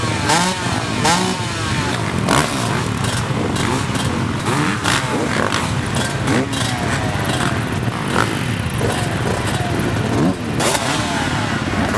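Motorcycle engines revving, several at once, their pitch rising and falling over and over.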